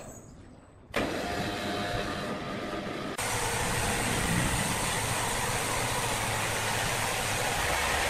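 Heavy machinery running with a steady, dense mechanical noise. It starts abruptly about a second in and steps up louder a couple of seconds later.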